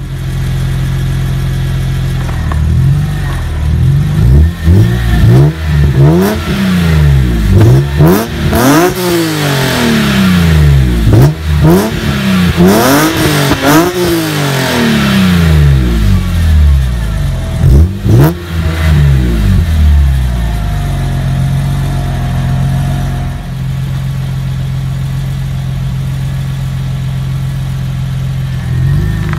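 E46 BMW M3's S54 inline-six with a CSL airbox and a Supersprint header-to-muffler exhaust, revved repeatedly with the car standing still. It idles, then is blipped through a string of about a dozen quick revs, each rising and falling, and settles back to a steady idle about twenty seconds in.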